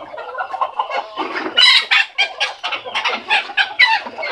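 A flock of Cochin and frizzle bantam chickens clucking, with a quick run of short, sharp calls, about three or four a second, growing louder about a second and a half in.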